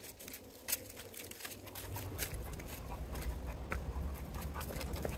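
Footsteps of a walker and a leashed dog on a rocky trail strewn with dry leaves: scattered crunches and scuffs. A low rumble comes in about two seconds in.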